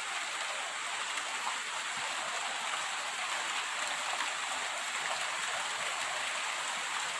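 Steady rain falling: an even hiss that neither builds nor breaks off.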